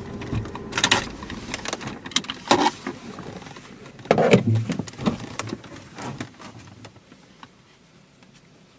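Clicks and rustling inside a parked car as the driver unbuckles her seatbelt, with a louder clatter of the belt and buckle about four seconds in, then quieter handling noises.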